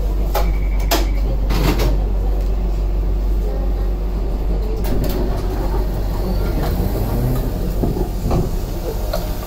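Toden 7700 series tram standing at a stop, with a steady low hum inside the car. A short high beep comes about half a second in, and knocks and clunks follow at scattered moments.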